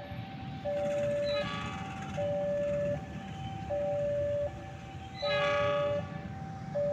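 Railway level-crossing alarm sounding a steady two-tone ding-dong, the tones alternating about every three quarters of a second, warning that a train is approaching. Twice a brief horn sounds over it, about a second and a half and about five seconds in.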